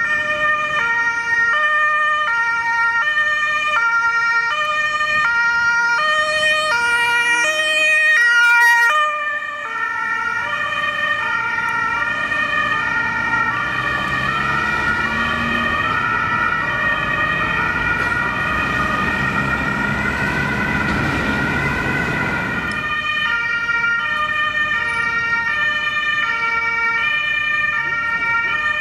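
German two-tone emergency horn (Martinshorn) on a Red Cross ambulance, switching back and forth between two pitches with each tone lasting under a second. Midway the ambulance drives close by, and engine and tyre noise swell under the horn while its pitch shifts as it passes. Then the clean alternation carries on.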